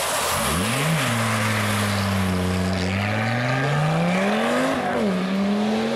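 Audi quattro rally car's turbocharged inline five-cylinder engine passing hard: the revs climb sharply in the first second, ease off for a couple of seconds, then climb again, with a quick drop at an upshift just before five seconds in.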